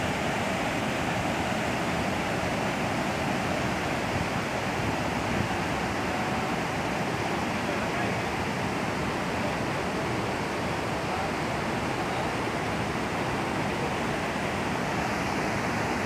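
Water rushing over a low concrete weir: a steady, unbroken rush of falling water.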